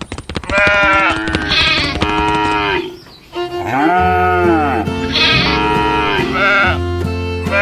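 A series of wavering, sheep-like bleating calls over background music, with a steady bass line coming in about four seconds in.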